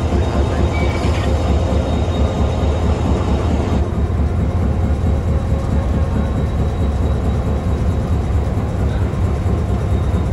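Pakistan Railways HGMU-30 diesel locomotive idling close by: a steady low engine rumble with a hum. The higher hiss drops away about four seconds in.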